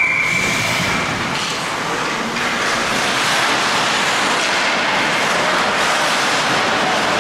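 Ice hockey game noise: a steady scraping wash of skates on the ice and play along the boards, with a short high tone in the first second.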